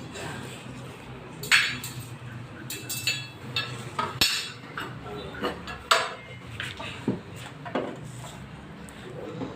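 Irregular metallic clinks and knocks of tools and metal parts being handled while a washing machine is taken apart, with a faint steady low hum underneath.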